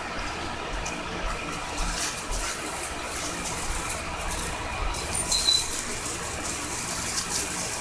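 Plastic wrapping and a paper sleeve rustling and crinkling in the hands as a mini tripod is unwrapped, with many small crackles throughout.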